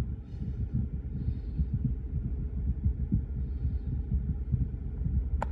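Container freight train of Koki 100-series wagons rolling past, heard as a low, uneven rumble with irregular thumps from the wheels on the track.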